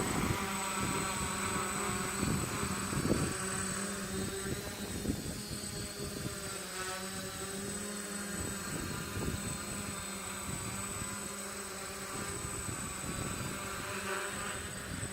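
Drone propellers buzzing steadily in flight. Gusts of wind rumble on the microphone, heaviest in the first few seconds.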